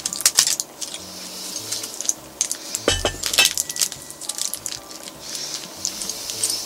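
Light clicks and clinks of small objects being handled on a table, with a louder knock about three seconds in.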